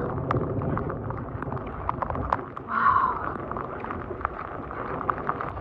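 Heavy rain falling, with many sharp drop taps close to the phone and wind rumbling on the microphone; a brief louder rush comes about halfway through.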